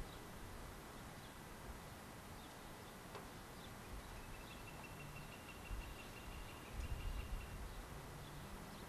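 Quiet outdoor ambience under steady tape hiss, with a faint high trill lasting about three seconds in the middle and a few low dull thumps toward the end.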